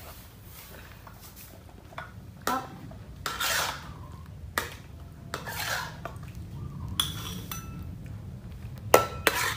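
Metal spoon scraping inside a metal wok and clinking on a ceramic bowl as cooked vegetables are scooped out: about eight separate scrapes and knocks, two of them drawn out, the sharpest clinks close together near the end.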